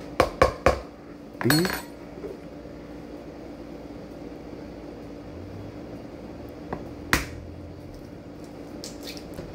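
A spoon knocking against a plastic mixing bowl, three quick knocks at the start, then one sharp knock about seven seconds in. A faint steady hum runs underneath.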